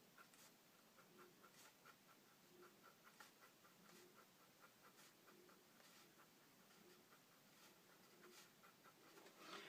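Near silence: faint room tone with a soft, regular ticking, about one to a few ticks a second, and light brush strokes of paint on the painting surface.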